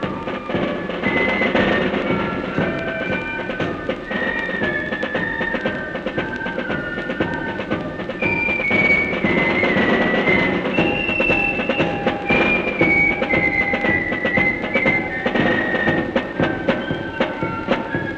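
Military corps of drums playing a march: a high, held-note melody over steady snare drum strokes and rolls.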